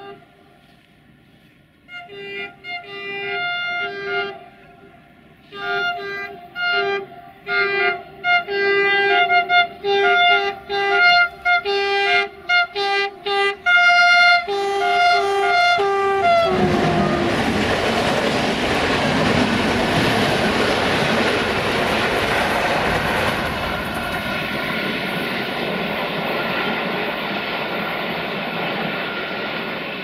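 Horn of CFR electric locomotive 477-268-3 played as a rapid run of short blasts at several pitches, like a tune, for about the first sixteen seconds. Then the locomotive and its passenger coaches pass close by with a loud, steady noise of wheels on rail that eases slightly near the end.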